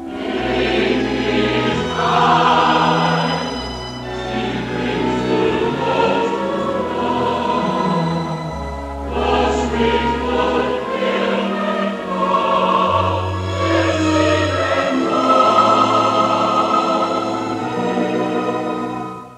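Choral music: a choir singing over held bass notes that change every second or two.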